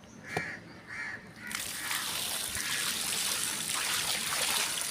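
A crow caws a couple of times, then from about a second and a half in, water pours steadily, soaking wood chunks for smoking meat.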